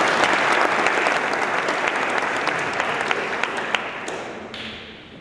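Applause from a seated audience and the people on stage, many hands clapping together. It thins out from about four seconds in and dies away near the end.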